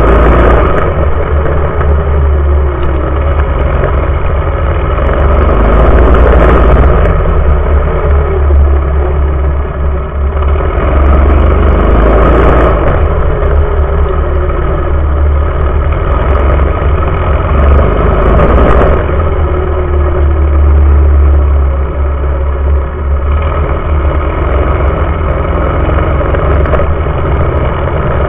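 A small mini-bike engine running hard, recorded close up from under the frame with heavy wind rumble. Its pitch climbs and then falls away about every six seconds, as the bike accelerates and backs off around a short dirt track.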